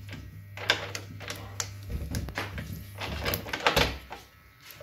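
A series of knocks and clicks from the wooden cabinet of an old coin-operated pfennig slot machine as it is handled and opened. A low steady hum stops about two seconds in.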